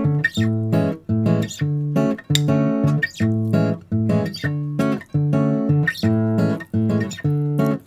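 Background music: strummed acoustic guitar chords in a steady, repeating rhythm.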